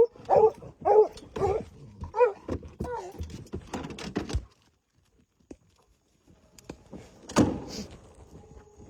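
Young bear hounds barking at a treed bear, a quick string of barks in the first three seconds. A pause follows, then a single thump about seven and a half seconds in.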